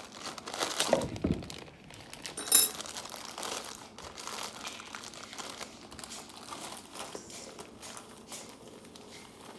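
Plastic bag of white powder crinkling and crackling as it is handled and tipped over a bowl, with one sharp crackle about two and a half seconds in.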